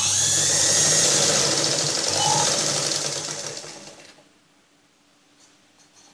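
Sewing machine running fast as it stitches a seam through the fabric, slowing down and stopping about four seconds in.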